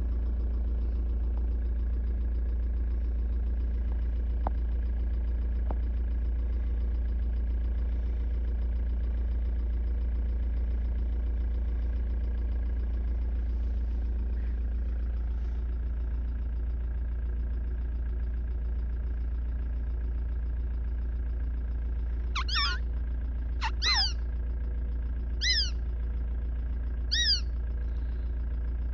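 Engine idling with a steady low hum. Late on, four short calls, each falling in pitch, come about a second and a half apart.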